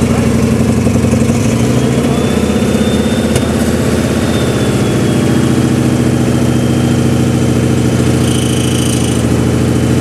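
Freshly rebuilt flathead engine in a Glasspar G2 roadster running steadily on its first run after the rebuild.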